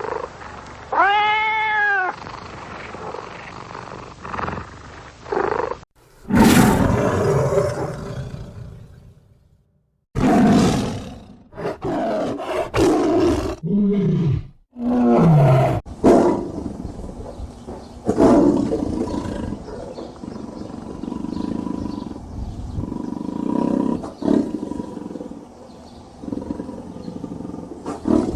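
Tigers roaring and growling in a series of separate loud calls, one of them a pitched call that rises and falls, with abrupt cuts between them.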